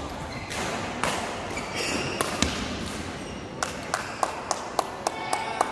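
Light, sharp taps of a badminton racket on a shuttlecock. There are a few scattered hits at first, then from about halfway an even run of quick taps, about three or four a second, over the steady noise of a sports hall.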